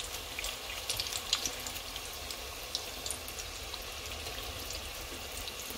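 Griwech (Algerian honey pastries) deep-frying in hot oil: a steady sizzle with scattered crackles throughout.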